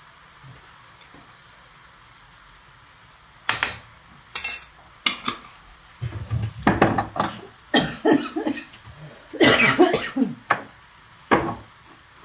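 Kitchen handling sounds while seasoning a frying pan: a string of irregular clicks, rattles and knocks of spice containers and utensils, starting about three seconds in, over a faint sizzle from the pan.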